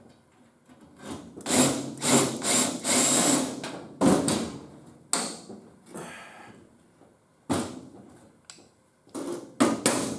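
Hand and power tool work on car body sheet metal: a cluster of noisy bursts, then separate sharp strikes and short bursts that die away, at irregular intervals.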